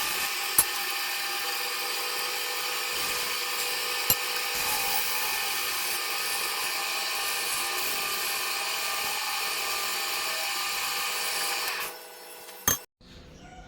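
Wood lathe running with a steady high-pitched whine and hiss. It cuts off about twelve seconds in, followed by a sharp click.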